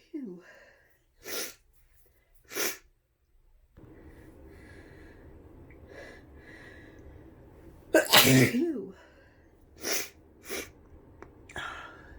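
A woman sneezing with the flu: one loud, full sneeze about eight seconds in, with short sharp intakes of breath through the nose before and after it.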